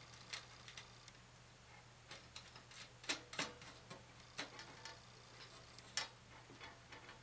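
Small metal screw hardware (ring connectors, washers and a nut on a machine screw) clicking and ticking lightly as fingers fit and tighten it, in scattered, irregular clinks, the sharpest about six seconds in.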